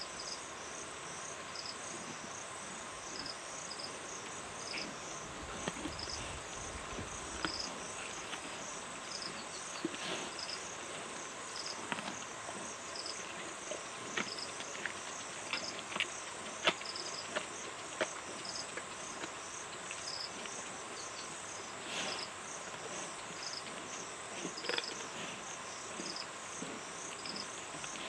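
A lioness chewing on a warthog carcass: scattered sharp cracks and crunches of bone and flesh, the loudest about two-thirds of the way through. Under it runs a steady insect chorus with chirps repeating about once a second.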